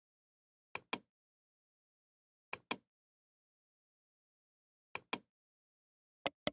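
Computer mouse button clicking: four pairs of short, sharp clicks, each pair a fraction of a second apart, with total silence between them.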